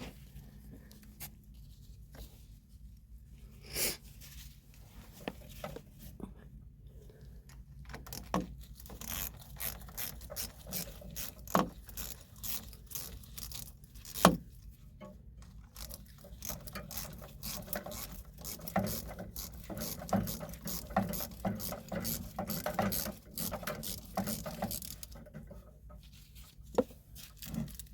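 Drain pipe fittings being worked loose and pulled apart by hand: scattered scraping, clicking and knocking, busier from about a third of the way in, with two sharp knocks near the middle.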